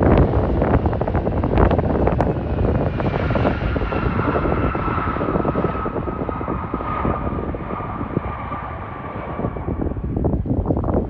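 Jet airliner's engines passing, a steady rushing roar with a whine that slides slowly down in pitch over several seconds, with wind rumbling on the microphone.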